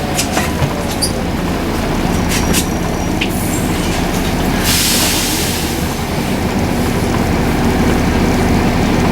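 Volvo B7RLE bus's seven-litre six-cylinder diesel engine running steadily, with rattles and a few clicks in the first few seconds. About halfway through there is a burst of air hiss lasting a little over a second.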